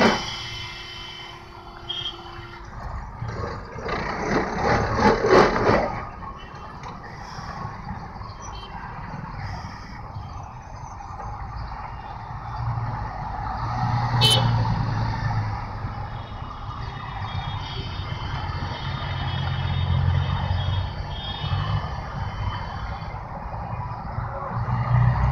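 Busy city street traffic: motor vehicles running close by, with a louder rush of noise a few seconds in, a sharp knock about halfway, and the low hum of a large engine swelling as a bus pulls alongside.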